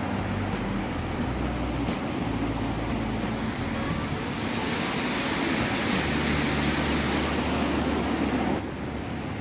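Steady rushing noise of flowing river water. It grows louder in the middle and drops suddenly near the end.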